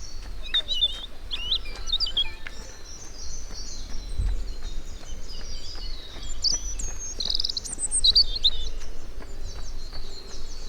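Small songbirds chirping and calling in woodland, with short chirps early and a higher, faster trill about seven seconds in, over a steady low rumble.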